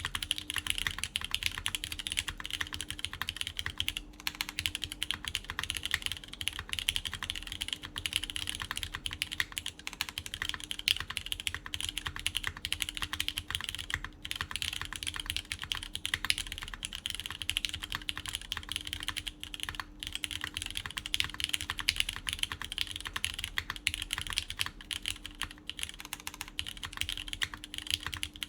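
Continuous fast typing on a QK Neo80 Cu mechanical keyboard in top-mount configuration, with lubed Cherry MX Orange switches, a PEI plate and GMK Carbon keycaps: dense, unbroken key clacks.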